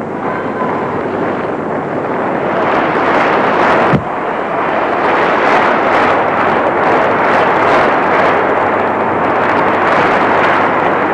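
Tennis arena crowd cheering and applauding, a steady loud noise that swells over the first few seconds, with a single sharp crack about four seconds in.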